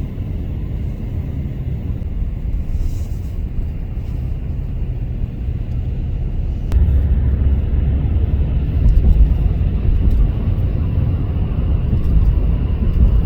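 Road noise of a car moving along the highway, heard from inside the cabin: a steady low rumble that grows louder about seven seconds in.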